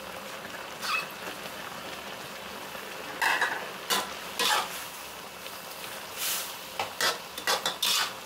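A metal spatula scraping and clanking against a wok as a soupy curry is stirred, with sharp scrapes about a second in, then in clusters from about three seconds on. A steady low sizzling hiss of the simmering curry runs underneath.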